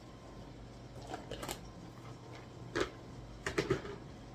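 Supplement pill bottles and pills being handled: a few short clicks and rattles as caps are worked and pills are shaken out, about a second in, near the middle and again near the end. A steady low hum from a running dishwasher lies underneath.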